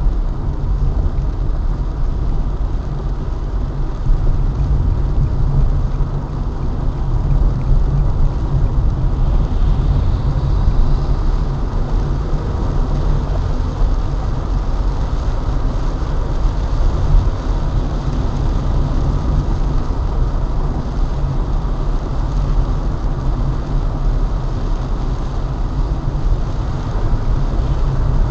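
Car driving on a wet road, heard from inside the cabin: a steady low rumble of road and engine noise with a hiss of tyres on wet asphalt.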